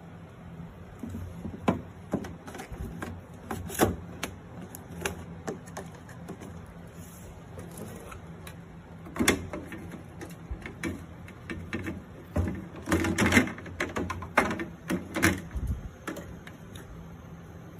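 Hands handling objects: irregular clicks, taps and knocks, busiest about two-thirds of the way through, over a steady low hum.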